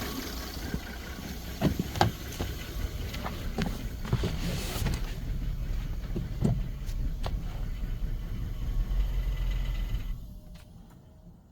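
Ford 3.5 EcoBoost twin-turbo V6 running with sharp knocks every second or so, the rod knock the uploader diagnoses. The engine shuts off about ten seconds in.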